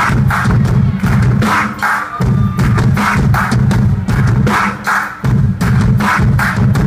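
Loud live music from a noise-pop band: a pounding drum beat over a heavy, distorted low end, with no vocals.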